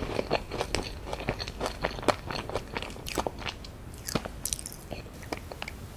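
A person chewing a crisp meringue cookie: dense, irregular crunches that thin out near the end.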